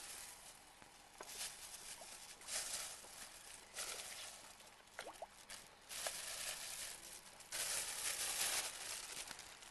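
Rustling of a plastic bag being handled, in irregular bursts of hiss, the longest and loudest a little after halfway through.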